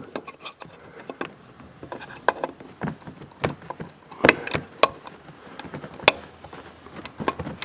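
Scattered sharp metal clicks and knocks of a ratchet and bolts being worked while an EGR valve's mounting bolts are fitted, coming irregularly about every half second.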